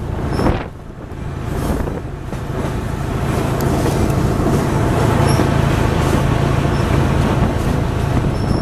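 A diesel-hauled train running along the track, heard from an open car: a steady low rumble of the locomotive engines and wheels on rail that grows louder about two to three seconds in. Wind buffets the microphone briefly about half a second in.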